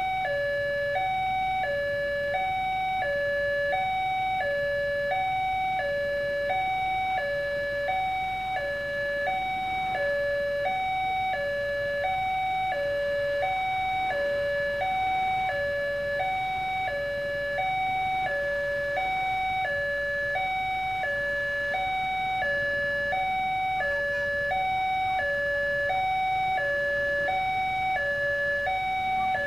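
Electronic railway level-crossing warning alarm sounding from the loudspeaker on the signal mast. It alternates steadily between a higher and a lower tone, each held about half a second, warning that a train is approaching.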